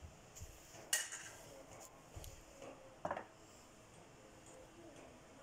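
A few light clinks and knocks of kitchen utensils against a cooking pot, the sharpest about a second in and about three seconds in.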